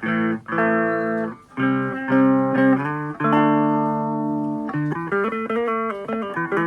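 Electric guitar played clean through an amplifier with the fuzz pedal bypassed: chords struck and left to ring one after another, moving into quicker note changes near the end.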